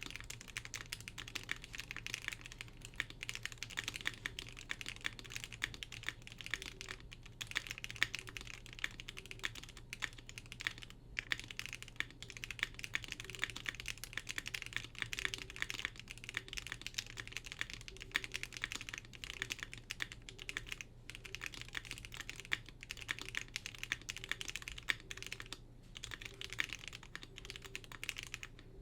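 Fast, continuous typing on a QK75 mechanical keyboard with lubed Gateron Box Ink linear switches, GMK keycaps and a polypropylene plate: a dense stream of keystrokes, broken by a few brief pauses.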